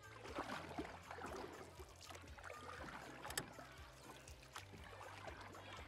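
Faint water sounds: irregular splashing and trickling with scattered small clicks, over a low steady hum.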